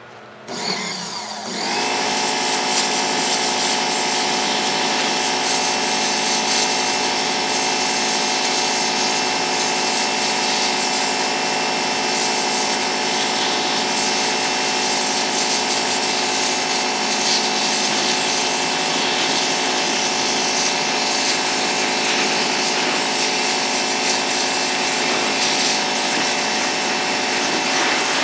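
High-pressure power washer (about 4,200 PSI) spraying its jet into a pumpkin's rind: it comes up to full pressure over the first two seconds, then runs steadily, a constant drone with a spray hiss over it.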